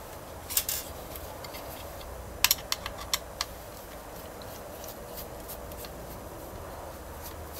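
Clicks and taps of a screwdriver and fingers on a plastic control-panel housing as the screws holding its circuit board are undone. A few sharp clicks come about half a second in, then a quick run of them about two and a half to three and a half seconds in, with fainter ticks after.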